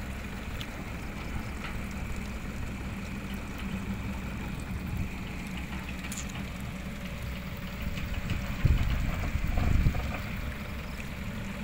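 A heavy diesel engine runs with a steady low rumble, swelling louder for a second or two late on.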